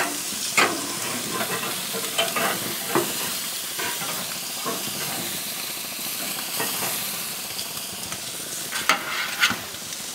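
Ham steaks sizzling on a very hot infrared grill: a steady hiss with a few sharp clicks and crackles, a couple early on and a cluster near the end.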